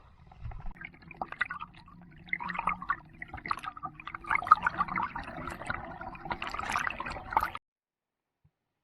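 Water splashing and gurgling, growing busier partway through, then cutting off suddenly near the end.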